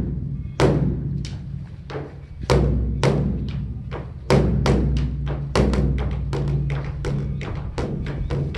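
Large Buddhist temple drum (beopgo) being beaten in a loose, quickening rhythm: single heavy strikes at first, then a fast run of about five strikes a second near the end, over a low booming hum from the drum.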